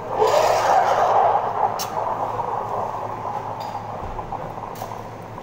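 Espresso machine steam wand steaming milk in a stainless steel pitcher: a loud hiss that starts suddenly, is strongest over the first second or so, then eases off gradually.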